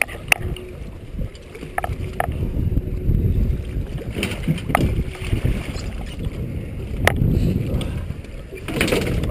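Wind and water noise around a small open boat at sea, with a few sharp knocks as fish are gaffed and hauled over the side.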